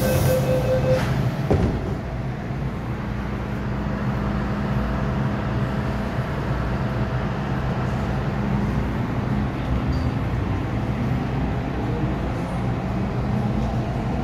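MTR Island Line M-Train heard from inside the car: a steady low hum, a single thump about a second and a half in, and near the end a faint rising whine from the traction motors as the train starts to move.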